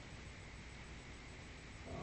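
Faint steady hiss of background noise in a gap between sound effects.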